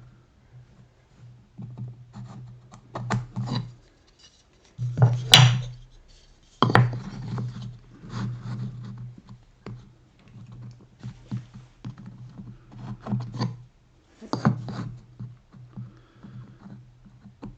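Scratching, rubbing and wooden knocks from hand work on a workbench, pieces and tools being handled while dovetail layout lines are marked. Irregular, with louder knocks about five and seven seconds in and again near the end.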